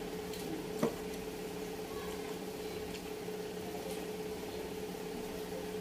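A steady machine hum, even in pitch, with one sharp click a little under a second in.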